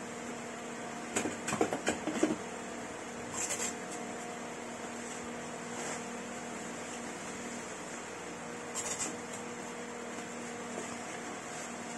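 Bubble wrap crinkling and rustling in short crackly bursts as it is folded around a small cardboard box: a cluster from about one to two seconds in, a shorter one at about three and a half seconds, and another near nine seconds. A steady hum underneath throughout.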